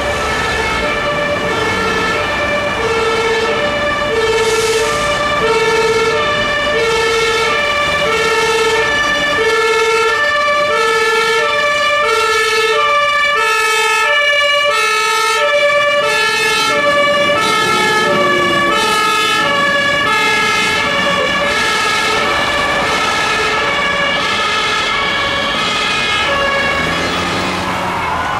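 Two-tone siren of a Belgian fire brigade Magirus turntable ladder truck, a low and a high note alternating about once a second. Near the end a different siren with a rising and falling pitch comes in.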